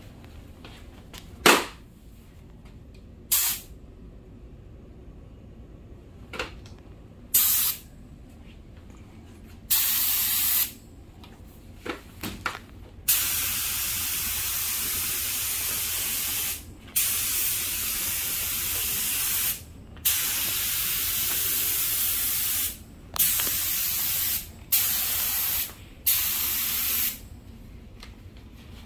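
Air-powered gravity-feed spray gun spraying a clear coating onto a car panel at about 14 PSI: a few brief bursts, then about six passes of steady hiss, each one to three and a half seconds long, with short pauses between.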